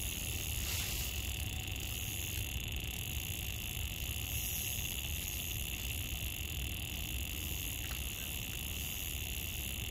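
A steady chorus of small calling animals at the waterside, a high, even hum that does not change, over a low, constant rumble.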